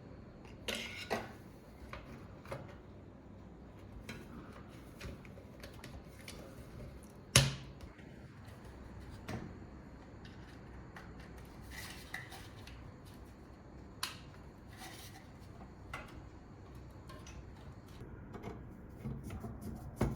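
Scattered light clicks, taps and clinks of small hard computer parts being handled during assembly, with one sharper knock about seven seconds in.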